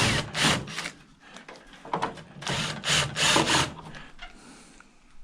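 A right-angle tool attachment working at a fastener in an old microwave's metal housing. It makes rasping, clicking bursts in two main stretches, a short one at the start and a longer one from about two and a half seconds in, with quieter gaps.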